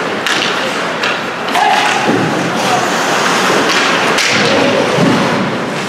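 Ice hockey play in a rink: several sharp knocks and thuds of puck, sticks and players against the boards and ice, over a steady noisy background of the rink.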